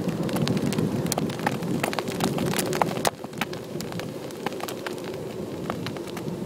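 Kite buggy's wide balloon tyres rolling over sand strewn with thousands of shells, crunching and crackling as the shells break under them, over a steady rumble. The rumble eases a little about three seconds in.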